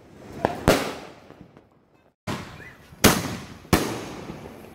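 Aerial firework shells bursting overhead: about five sharp bangs, each fading away. The loudest come just under a second in and twice more around three to four seconds in, with a brief break of near silence just before two seconds in.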